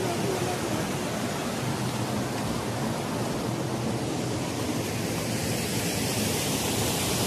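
Steady rush of a rocky mountain stream, water running fast over boulders.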